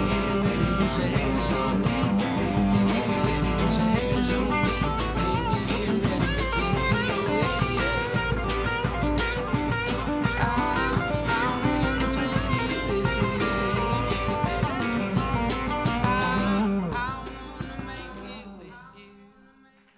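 Live band playing a song: acoustic and electric guitars with drums. The music fades out over the last three seconds or so.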